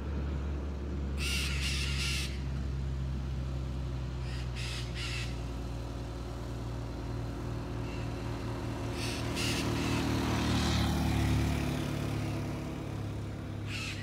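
Parrots giving harsh squawks in short groups of two or three, a few seconds apart. A vehicle engine runs steadily underneath, swelling about ten seconds in.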